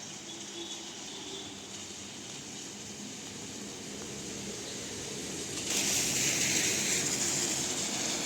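Outdoor ambience in the rain: a steady hiss of rain and wet traffic. A louder hiss comes in sharply nearly six seconds in and eases off slowly.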